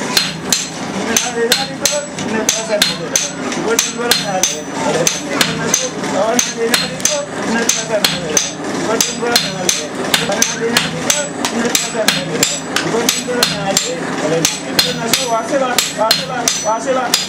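Blacksmith's hammers striking hot iron on an anvil in a steady rhythm, about three blows a second, each with a bright metallic ring: a striker's sledgehammer alternating with the smith's lighter hand hammer as the iron is forged.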